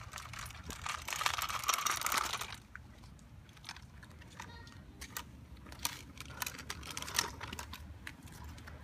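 A kick scooter's small wheels rolling and crunching over gritty asphalt, with scattered clicks. The crunching is loudest for the first two and a half seconds, then thins to occasional clicks.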